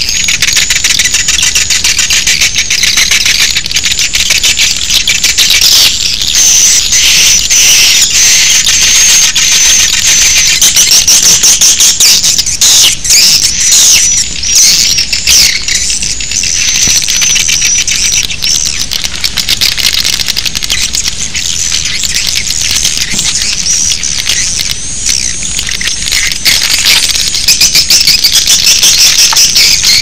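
Recorded swiftlet lure call ('suara inap', baby swiftlet sound): a loud, dense, unbroken chatter of high twittering chirps and rapid clicks. It is the kind of call played in swiftlet houses to draw swiftlets in to roost and nest.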